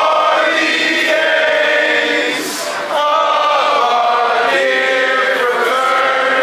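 A large group of men's voices singing together in long held notes, with a short break about three seconds in before the voices pick up again.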